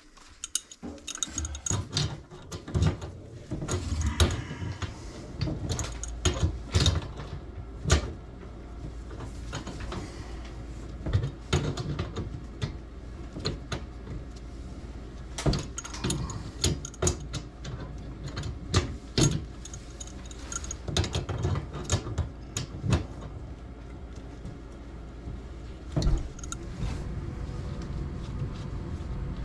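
Irregular clicks, taps and knocks of hands working on a plastic ABS sink drain under a cabinet, over a steady low hum that starts about a second in.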